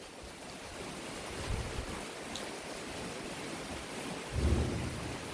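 Steady outdoor hiss of wind, with two gusts buffeting the microphone in low rumbles, about a second and a half in and more strongly near the end.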